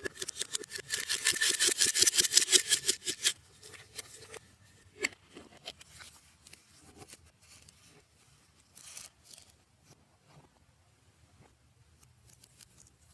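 Slime being kneaded and squeezed by hand: a fast run of crackling clicks, about ten a second, for roughly the first three seconds, then scattered softer clicks and squishes.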